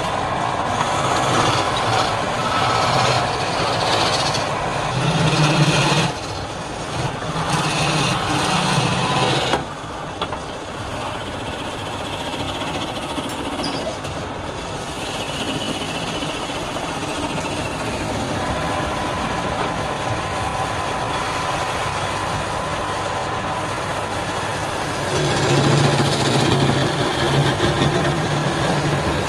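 Wood lathe running steadily, with louder, rougher stretches during the first ten seconds and again near the end.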